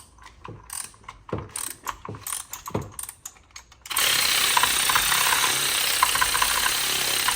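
Hand ratchet clicking in short runs of strokes while working on the engine. About four seconds in, a loud steady hiss-like noise starts abruptly and drowns it out.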